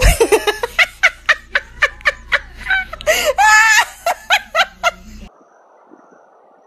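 A person laughing hard in rapid bursts, about four a second, with a longer high-pitched peal about three seconds in; the laughter cuts off abruptly about five seconds in, leaving only faint background noise.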